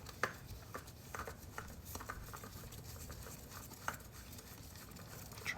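Faint, irregular small clicks and rubbing as an oil filter is handled and wiped dry.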